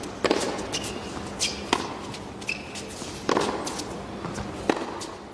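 Tennis ball struck back and forth by rackets in a rally on an indoor hard court: four sharp strokes about a second and a half apart, each ringing briefly in the hall. Short high squeaks of shoes on the court come between the strokes.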